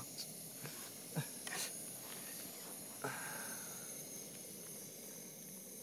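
MSR multifuel camping stove burning under the pot with a steady hiss, with a few faint clicks and a short knock about three seconds in.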